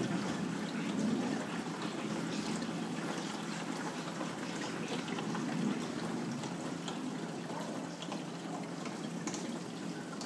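Water pouring and swirling down the PVC standpipes of a Bean Animal aquarium overflow, a steady rushing gurgle with many small splashes. The trapped air has just blown out of the siphon line, so the water level in the overflow box is starting to drop.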